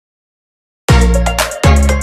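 Dead silence for nearly a second, then loud music cuts in abruptly, with deep bass notes that slide down in pitch as each one starts, recurring about every half second, and sharp percussion on top.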